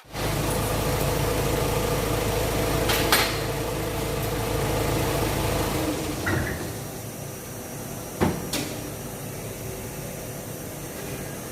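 A steady mechanical hum with a low rumble that drops away about six seconds in, with a few sharp knocks and clicks of tools on metal parts.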